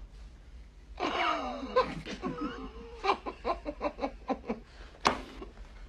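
Several men laughing and snickering, starting about a second in and breaking into a quick run of short laughs about three seconds in, with a sharp burst near the end.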